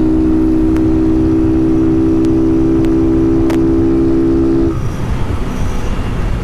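Honda CG 160 Start's single-cylinder engine, running without an air filter through a tin Polimet exhaust, held at steady high revs at highway speed. A little under five seconds in the throttle is closed and the engine note cuts off, leaving the rush of wind and road noise.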